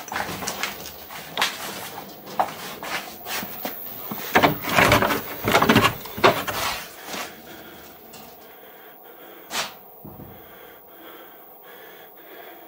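Irregular knocks, bangs and scrapes on wooden boards inside a small wooden shed, heaviest and loudest in a cluster around the middle, then a single knock and quieter rustling.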